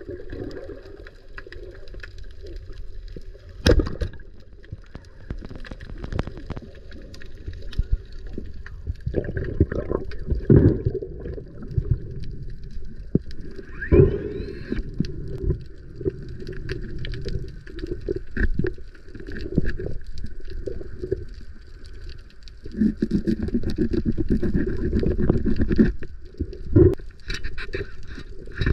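Underwater sound from a spearfishing dive: muffled water movement and gurgling, with one sharp snap about four seconds in as the speargun fires at a yellow jack. A faint steady whine runs underneath.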